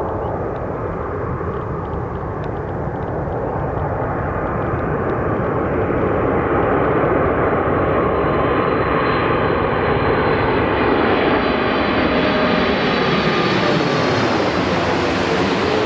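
Boeing 747-8F freighter's four GEnx turbofans on landing approach. The jet rush grows steadily louder and brighter as the aircraft draws near, with a high fan whine, and it is loudest near the end.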